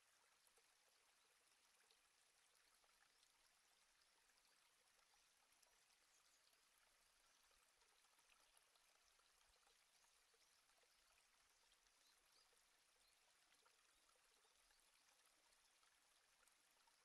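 Near silence: a faint steady hiss with tiny scattered crackles, as from a camera recording underwater.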